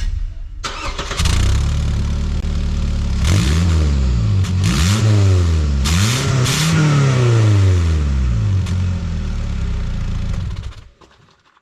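Toyota Camry engine starting about a second in, then revved up and down three times before settling to a steady run, with its exhaust leaking at the blown donut gasket between the pipe and the muffler. The sound cuts off suddenly near the end.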